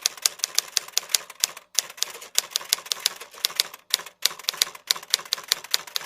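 Rapid, irregular clicking like keys being typed, several clicks a second, broken by a few brief dead-silent gaps, and cutting off abruptly at the end.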